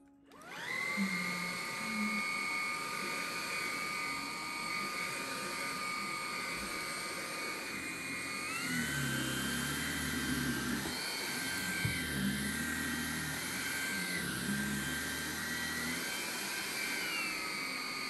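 Xiaomi Mi G10 cordless stick vacuum switching on and spinning up to a steady high whine. About eight seconds in, the pitch steps up as Auto mode raises the motor speed on carpet, with a low rumble added, then steps back down near the end as it returns to the hard floor.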